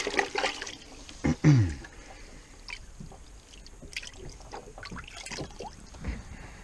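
Light water splashing and dribbling with small knocks and clicks as hands work in a bucket of water on a small boat. A short falling voice sound, a grunt or hum, comes about a second and a half in.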